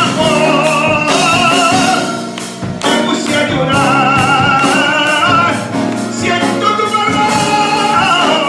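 A man singing a worship song into a microphone, holding long notes with a wide vibrato over instrumental backing. The singing pauses briefly a little after two seconds in and again near six seconds.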